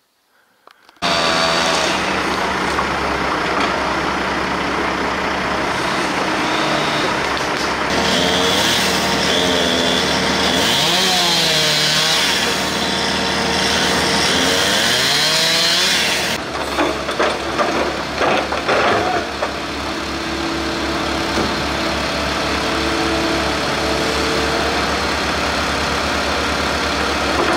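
Diesel engine of a compact tracked excavator (Terex TC75) running while it works, starting abruptly about a second in. The engine pitch rises and falls several times as the hydraulics are loaded, and a higher whine sits over it for a few seconds midway. A run of sharp knocks comes just past the middle.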